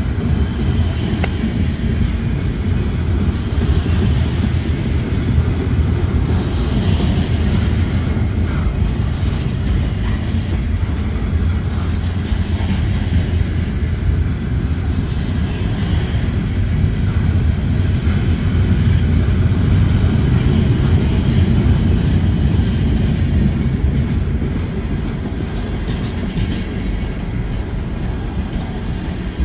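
Freight cars of a passing train rolling by close at hand: a steady rumble of steel wheels on the rails, easing slightly near the end.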